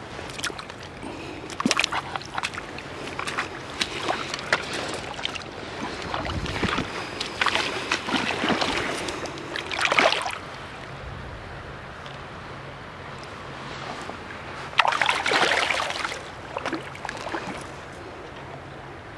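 Shallow river water splashing and sloshing in irregular bursts, loudest about ten seconds in and again around fifteen seconds in.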